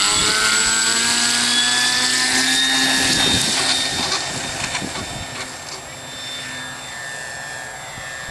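Hobbico Electristar RC plane's electric motor and propeller whining during the takeoff run, the pitch creeping slightly higher. The whine fades over the last few seconds as the plane climbs away.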